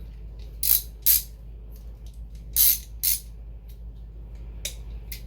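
Metal wrench sockets clinking and rattling as they are handled: two pairs of short rattles, about a second in and again near three seconds.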